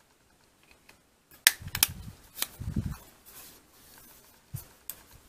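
Unboxing handling of a camera lens and its packaging: a cluster of sharp clicks and crinkling rustles about a second and a half in, with a low thudding rumble under them, then lighter rustling and two more clicks near the end.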